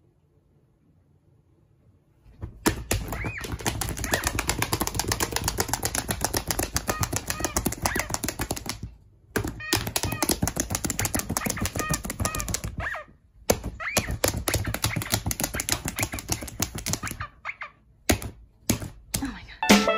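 A small dog's claws rapidly tapping and scratching on a tablet's glass screen, a fast clatter starting about two seconds in, running in three long runs with short breaks and ending in a few separate taps. Short high squeaks sound now and then among the taps.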